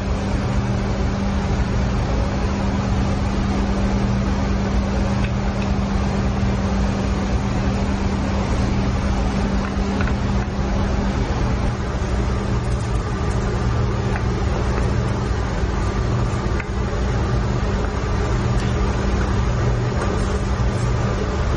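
Steady drone of a ship's engine-room machinery: a constant low hum with a hiss above it. One of its tones drops out about halfway through.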